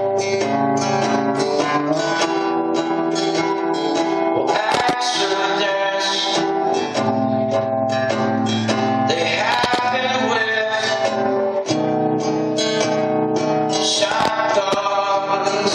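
Live acoustic song: strummed acoustic guitar under a male voice singing drawn-out, sliding lines.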